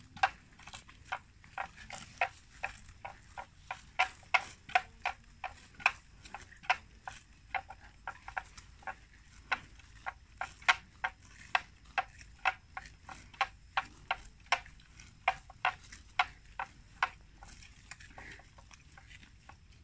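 Water buffalo grazing, tearing and cropping grass in quick, crisp rips, irregular at about two or three a second. The rips thin out near the end.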